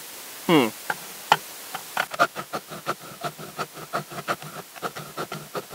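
Axe edge drawn repeatedly through the ceramic grindstone of a Fiskars Xsharp axe and knife sharpener, a quick run of short scraping strokes, several a second. A brief gliding pitched sound comes about half a second in.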